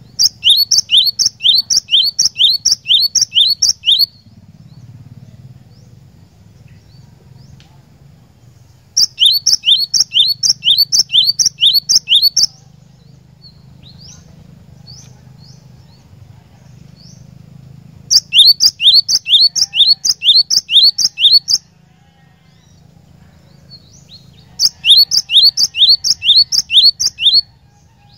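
Cinereous tit (glatik batu) song: four bouts of a rapidly repeated, bright two-part note, about three notes a second, each bout lasting three to four seconds, with faint chirps in the pauses between bouts.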